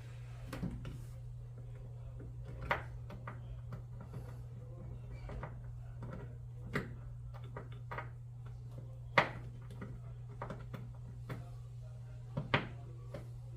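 Scattered sharp clicks and knocks of tools and plastic and metal parts being handled while the drain pump is fastened in with screws, the loudest knock about nine seconds in, over a steady low hum.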